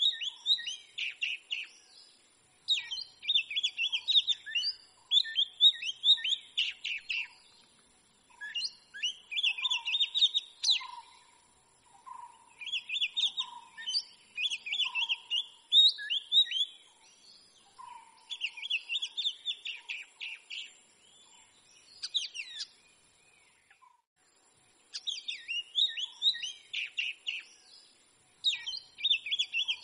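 Oriental magpie-robin singing: bursts of quick, varied whistled notes, each a few seconds long, broken by pauses of about a second.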